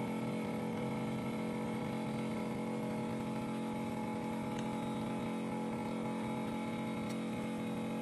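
Phone LCD separator machine running with a steady, even hum, with two faint light ticks about halfway through and near the end.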